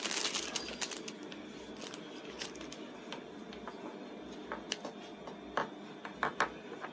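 Scattered faint clicks and light knocks as a hand turns a plastic Bluetooth speaker cabinet on a table, a few sharper clicks in the second half, over a low steady background.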